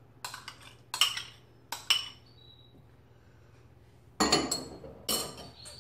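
A metal spoon clinks against a stainless steel mixing bowl three times, with a short metallic ring after the strikes. About four seconds in comes a louder, quick clatter of knocks.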